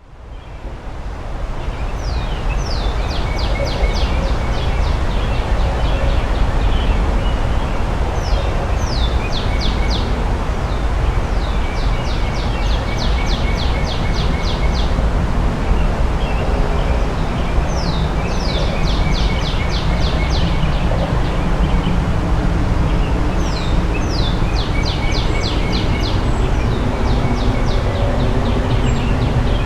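Northern cardinal singing, repeating a phrase of slurred whistled notes every few seconds, over the steady rush of a swollen creek and distant traffic rumble.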